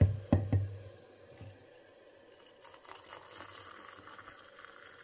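Three sharp knocks in the first second, then water pouring from a kettle into a mug over a teabag: a soft, steady rush that starts about two and a half seconds in.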